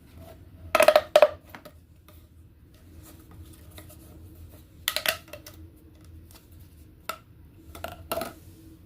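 Plastic fidget toys being handled, giving short clusters of sharp clicks and clacks, loudest about a second in and again around five seconds, over a faint steady hum.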